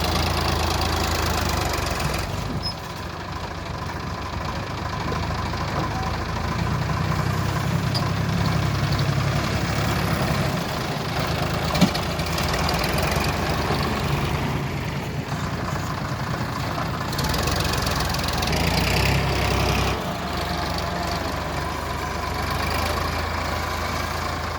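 Diesel engines of heavy machinery (a backhoe loader and tractors) running, their note shifting up and down several times as load and revs change, with one sharp clank about twelve seconds in.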